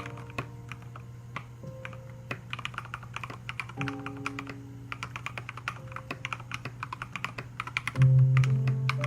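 Rapid, uneven typing on an Akko MOD001 mechanical keyboard with MT3-profile Serika keycaps: a continuous patter of keystroke clacks. Background music plays under it, its bass swelling louder near the end.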